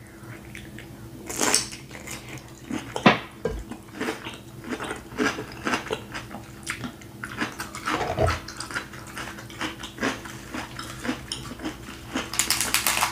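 Close-up chewing and crunching of a bite of raw cucumber, with wet mouth clicks. Near the end comes a quick run of cracks as a cooked king crab leg shell is broken apart by hand.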